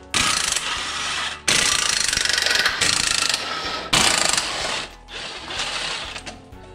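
Ratchet wrench working the clutch pressure-plate bolts loose, in four bursts of rapid clicking of about a second each over the first five seconds, then quieter handling of the loosened clutch.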